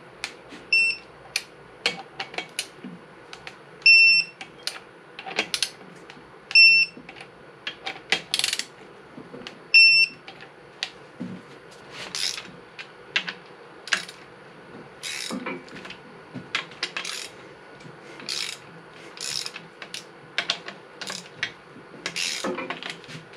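Digital torque wrench beeping four times, a short high beep each time a 6.0 Powerstroke connecting-rod bolt reaches its 50 ft-lb setting, with the clack of the wrench and socket. After that, a run of sharp metal clicks and clinks from a long-handled wrench working on the rod bolts.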